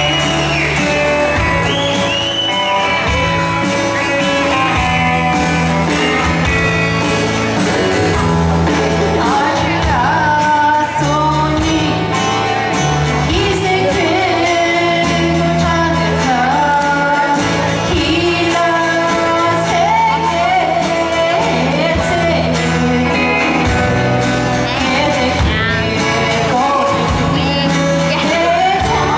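A woman singing a song over instrumental accompaniment with held bass notes and a steady drum beat.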